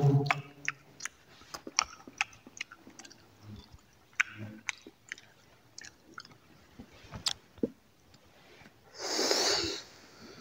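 Close-up crunching and chewing of dry fruit, with many short sharp crackles. Near the end comes one long breath, about a second long.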